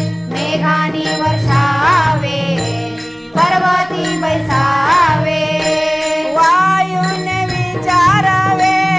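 Marathi devotional bhajan music: a melodic line with gliding, ornamented notes over a held drone, kept in time by small cymbals ticking. It thins briefly about three seconds in, then picks up again.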